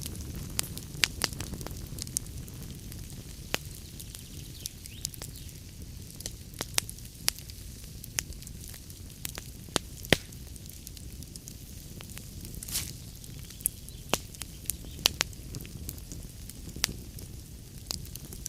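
Wood fire burning in a fireplace: a steady low rumble with irregular crackles and sharp pops from the logs, the loudest pop about ten seconds in.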